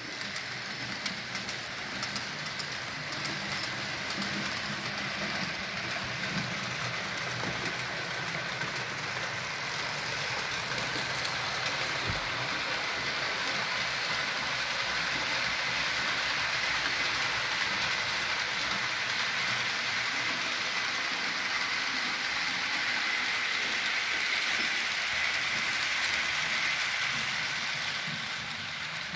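Model railway freight train of about fifteen wagons rolling along the track, its wheels making a steady, rushing rattle on the rails. It swells a little as the train comes closer and eases near the end.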